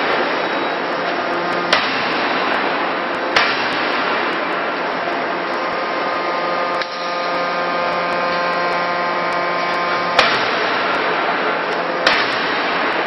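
A C92K-200 CNC fully hydraulic die forging hammer striking a red-hot workpiece in its die: two sharp blows under two seconds apart, a long pause, then two more blows. Steady machinery hum runs under the blows.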